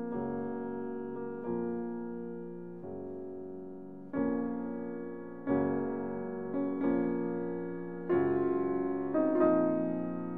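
Background music: slow keyboard chords, each struck and left to fade, a new one every second or so.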